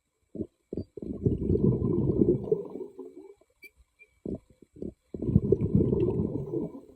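Muffled underwater bubbling rumble of a diver's exhaled air, in two long bursts a few seconds apart, each led in by a few short puffs.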